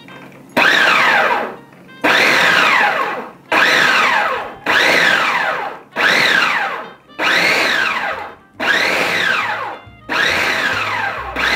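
Food processor pulsed about nine times in a row, each pulse a short run of the motor whose whine falls in pitch as the blade winds down. It is mixing pastry crumbs, egg and cold water until the dough gathers into a ball.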